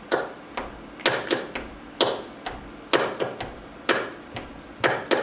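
Flamenco palmas: sharp hand claps marking the rhythm of the tangos, a strong clap about once a second with lighter claps between.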